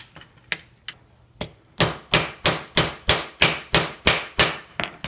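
Claw hammer peening over the end of an aluminum pin, metal striking metal: four light taps, then about nine sharp blows at roughly three a second, each ringing briefly. The blows spread the soft aluminum so the pin can't come out of its hole.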